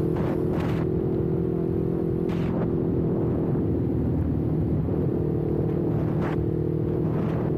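Kawasaki Ninja 400's parallel-twin engine running at steady revs, picked up by an action camera's internal microphone, with a few faint brief ticks.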